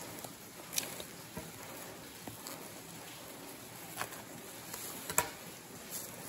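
Black bubble wrap being handled and cut with scissors off a small cardboard box: quiet plastic crinkling with a few sharp crackles, the loudest about five seconds in.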